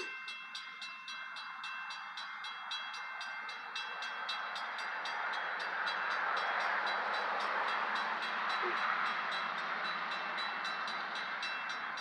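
Grade-crossing warning bell ringing in rapid, even strokes, with the noise of an approaching diesel locomotive swelling underneath it and loudest a little past the middle.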